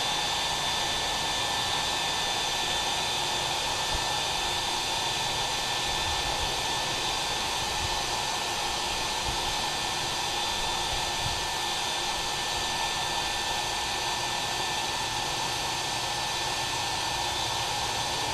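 A forge running steadily: a constant rushing noise with a thin, high steady whine over it.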